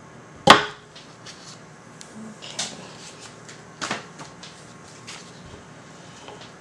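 Handling of a wooden soap cutter with a plastic bed as a soap loaf is pushed along it: one sharp knock about half a second in, then a few lighter knocks and small clicks.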